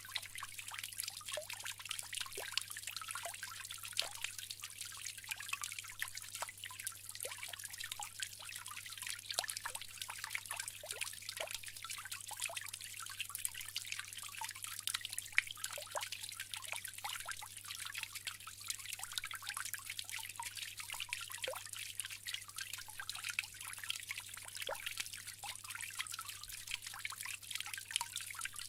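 Bamboo water fountain with water trickling and splashing steadily, many small drips and splashes over a continuous hiss of running water. A faint steady low hum sits underneath.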